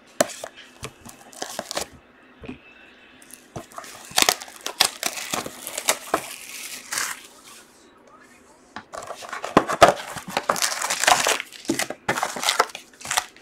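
Plastic shrink-wrap crinkling and tearing as it is pulled off a sealed Panini Spectra football card box, in three stretches of crackling with short pauses between.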